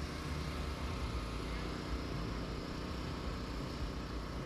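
Steady low rumble of an engine or motor running, with no breaks or sudden sounds.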